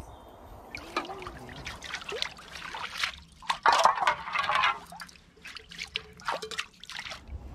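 Water sloshing and splashing as camp cooking pots and a pan are dipped and swished in shallow lake water to rinse them, in irregular bursts that are loudest a few seconds in.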